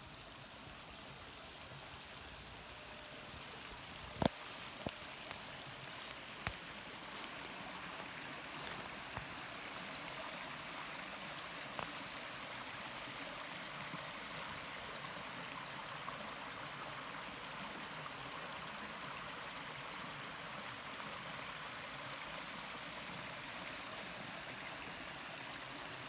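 Small woodland stream running over rocks: a steady watery hiss that grows louder over the first several seconds, then holds. A few sharp clicks come between about four and twelve seconds in; the two loudest are at about four and six and a half seconds.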